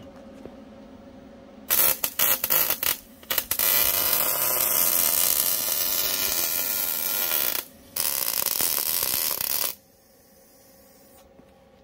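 Wire-feed welder arc crackling as steel angle iron is welded to a camper's frame: a few short starts about two seconds in, then a steady run of several seconds, a brief break, and another run of about two seconds that stops near the end. A faint hum lies under the quiet parts.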